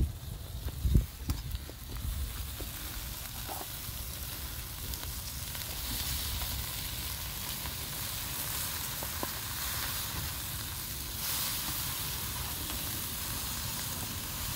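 Burger patties sizzling on a small charcoal grill: a steady hiss that grows brighter about six seconds in.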